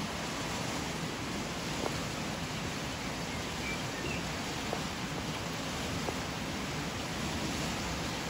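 Steady rushing of the Brandenberger Ache, a fast alpine river: an even, unbroken wash of flowing water.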